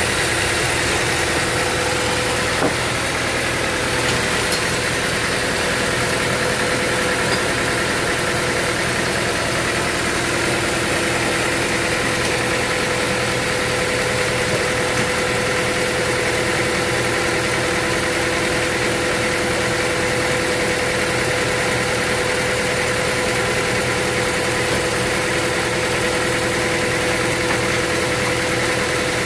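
Sawmill machinery running steadily: a constant mechanical drone with a steady hum and no breaks.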